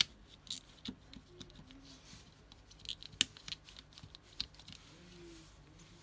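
Irregular clicks and scratchy handling noises, loudest a little past the middle, as gloved hands pull the rubber key-seal membrane away from a Videx VX800 keypad's metal faceplate.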